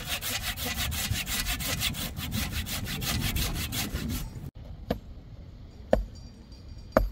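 Hand saw cutting through a wooden pole with rapid, even back-and-forth strokes. After a break about four and a half seconds in, there are three sharp wooden knocks about a second apart as a wooden stick pounds the base of an upright post.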